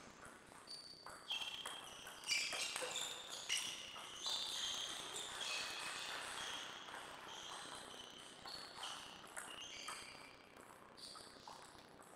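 Table tennis point being played: the ball clicking off bats and table in a short rally, followed by many brief high squeaks of shoes on the sports floor.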